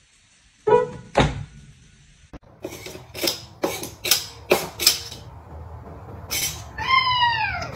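Domestic cat hissing several times in short sharp hisses. Near the end it gives a drawn-out meow that rises slightly and then falls, an annoyed reaction at being threatened.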